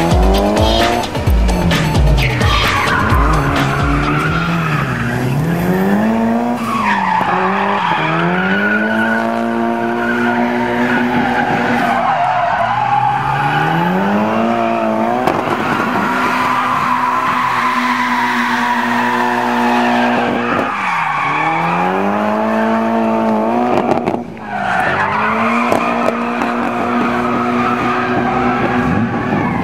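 Mitsubishi Lancer Evolution IX's turbocharged four-cylinder engine revving hard through a drift, its pitch climbing, holding high for several seconds and falling away again and again, over continuous tyre squeal.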